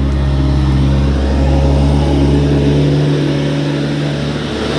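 Skid steer loader's engine running steadily, its tone changing about three seconds in.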